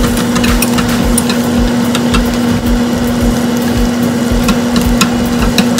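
Butter sizzling, with frequent sharp pops, as it melts in a saucepan while being stirred with a silicone whisk. A steady low hum runs underneath.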